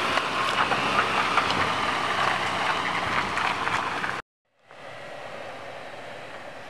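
Off-road 4x4 driving under throttle over rough trail ground: a loud, dense crackling noise with many clicks. It cuts off abruptly about four seconds in and gives way to a quieter, steady hiss.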